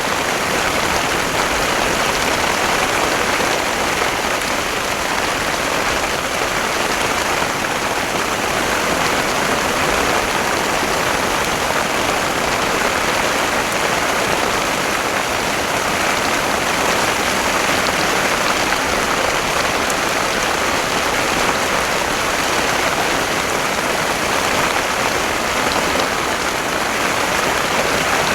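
Heavy rain pouring down in a steady downpour, an even, dense hiss with no let-up.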